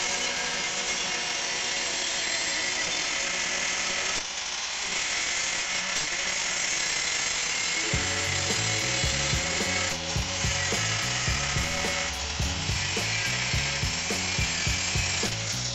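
Angle grinder with a cutting disc slicing through the steel shell of an old air compressor tank: a steady, high grinding hiss. Background music with a regular beat joins about eight seconds in.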